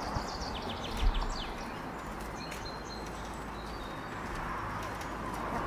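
Backyard chickens vocalising, with short high chirps over a steady outdoor background and a single knock about a second in.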